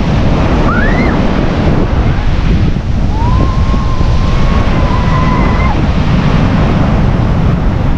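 Strong wind buffeting the microphone over breaking sea surf. A thin high rising call comes about a second in, and a long, thin, slightly wavering tone starts about three seconds in.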